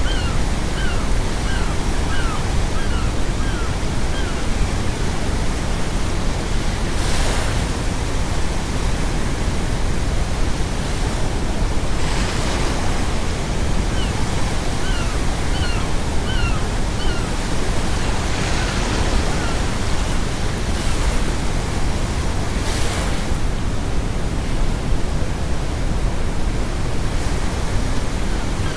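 Ocean waves breaking on a shore, with about four big surges, under a constant bed of brown noise. Seagulls call in short runs of quick repeated cries near the start, around the middle and near the end.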